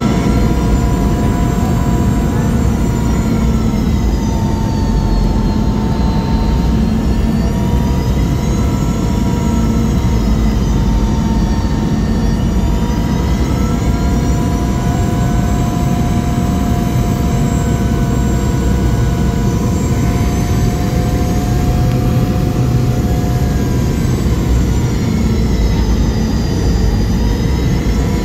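Boeing 717's rear-mounted Rolls-Royce BR715 turbofan heard from inside the cabin beside the engine: a steady deep roar with a whine on top that slowly rises and falls as the jet descends on its landing approach.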